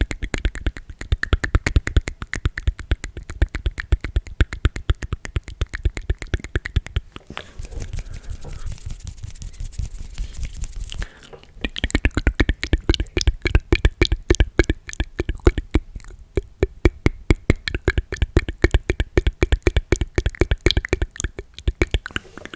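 ASMR mouth sounds made close to the microphone: fast, even runs of clicks, several a second, softer for a few seconds in the middle before picking up again.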